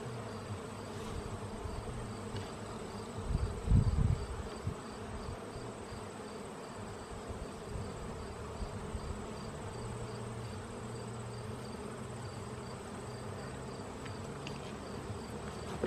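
Honeybees buzzing steadily around an open hive, a dense colony on the wing. A brief low rumbling knock about four seconds in.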